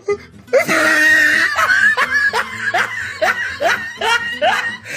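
Laughter: after a brief dip, a run of about eight short laughs, each rising in pitch, two or three a second.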